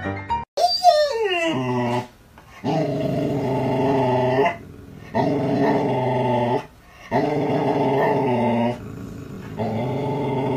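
Golden retriever growling at another dog in long, drawn-out pitched growls, four in a row with short pauses between. The growls come after a short falling whine.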